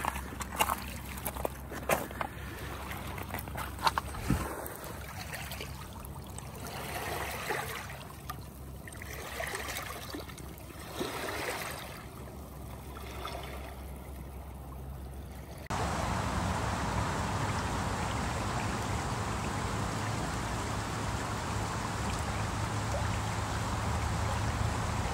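Gentle water lapping at a pebble shore with scattered sharp clicks in the first few seconds and soft swells after. About two-thirds through it cuts abruptly to a shallow creek running over a stony bed, a louder, steady rush of water.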